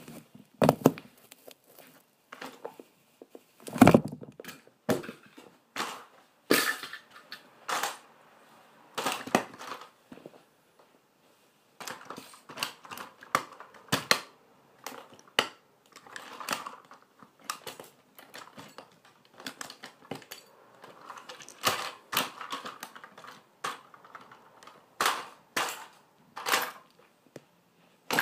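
High-heeled shoes stepping among plastic toys on a hard floor: irregular clacks, knocks and crunching clatter as the toys are kicked about and crushed underfoot, with one heavy thud about four seconds in.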